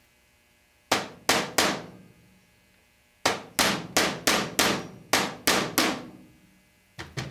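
A small hammer taps on a steel pin punch to drive out the pin holding the sear in a Rossi Model 69 revolver's hammer. There are three sharp taps about a second in, eight more between about three and six seconds, and two lighter taps near the end, each ringing briefly.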